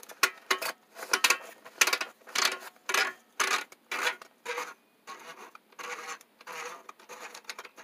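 Plastic cartridge holder of a life-jacket inflator being twisted off its threads, rubbing and scraping in short repeated strokes about two a second as the hands turn and regrip it.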